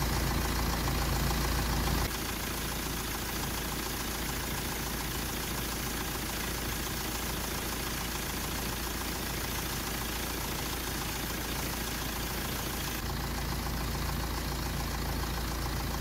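BMW E90 car engine idling steadily with its air conditioning switched on, as needed while the system takes in refrigerant. The low rumble drops a little about two seconds in and comes back near the end.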